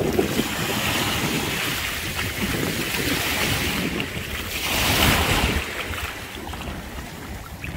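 Strong wind buffeting the microphone over small waves washing in the shallows; the rushing noise swells louder near the start and again about five seconds in.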